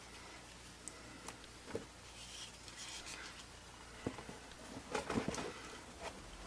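Faint handling noises from a Kel-Tec Sub-2000 carbine being turned over and examined: light clicks and rubbing, with a short cluster of louder clicks about five seconds in.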